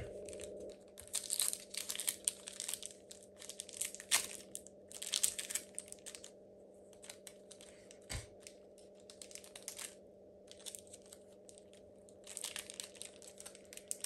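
Pokémon booster pack being handled: bouts of crinkling and rustling from the foil wrapper and cards, a second or two at a time with short pauses, over a faint steady hum.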